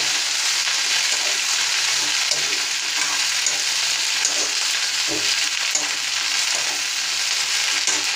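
Chopped okra sizzling steadily in hot oil in an iron kadhai while being stirred with a steel spoon.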